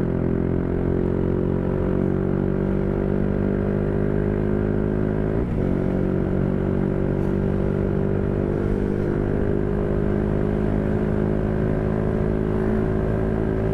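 Motorcycle engine running at a steady cruising speed, its pitch holding nearly level, with a low rumble of wind and road noise underneath.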